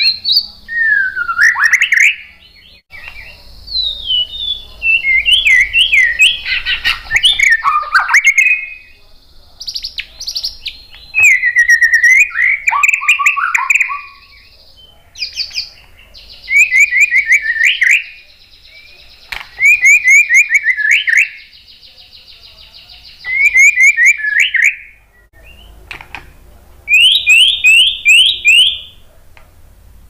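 White-rumped shama (murai batu) singing in loud phrases with short pauses between them. The phrases are quick runs of five or six sliding notes, trills and sharp clicks, and a thin steady high tone runs beneath many of them.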